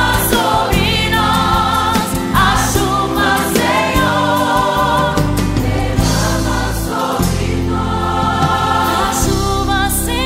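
Christian worship music: a choir singing sustained, wavering notes over an instrumental backing.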